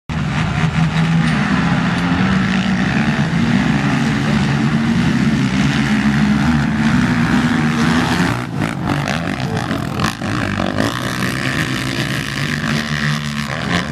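Several racing quads (ATVs) with their engines revving hard as they race over the dirt track, the engine pitch rising and falling with the throttle.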